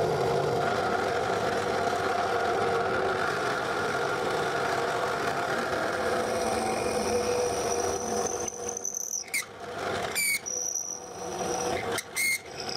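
Drill press running steadily while a 10 mm wood bit bores a hole into oak. In the last few seconds the level dips unevenly, and there are three short high squeals.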